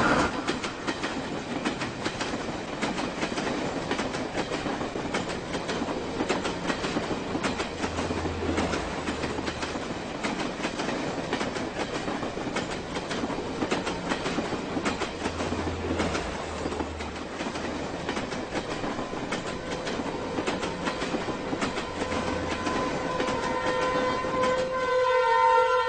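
Electric commuter train running on the track, a steady rumbling rattle with the clatter of wheels over the rails. Near the end, music with sustained tones comes in over it.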